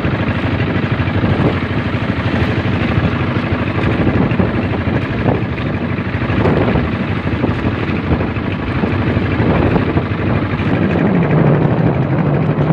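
Motorized outrigger boat's engine running steadily under way, with water rushing past the hull. A deeper steady hum comes in near the end.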